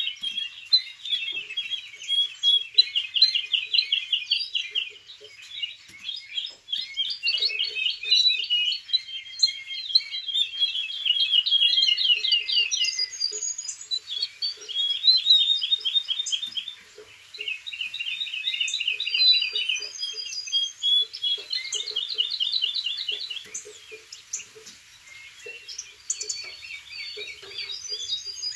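Young male domestic canary, six and a half months old, singing: a string of rapid trilled tours, each held a second or two, one after another with short breaks. It is a young bird still practising and warming up its song.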